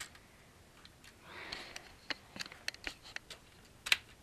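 Plastic Lego pieces of a toy model being handled: a soft rush about a second in, then a string of light plastic clicks and taps, the sharpest one near the end.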